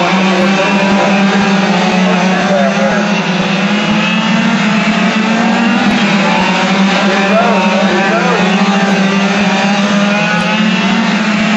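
A pack of quarter-scale radio-controlled oval race cars lapping together, their small two-stroke gas engines buzzing, with many overlapping pitches rising and falling as the cars pass and go round the turns.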